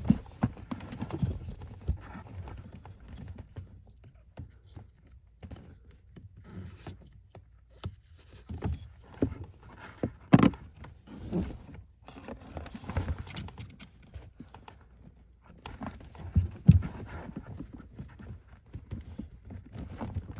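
Irregular knocks, clicks and scraping of hand work with a pocket knife, cutting a hole in a rubber firewall plug bigger so wires can pass through.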